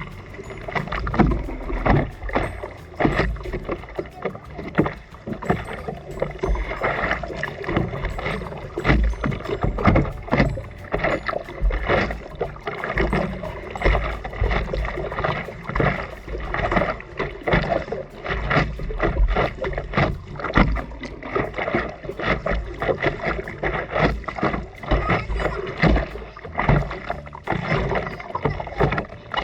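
Sea water splashing and sloshing in an irregular rush, with wind rumbling on the microphone.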